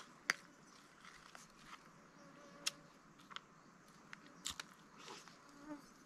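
Someone eating: a scattering of sharp, crunchy clicks from chewing, with quiet between them.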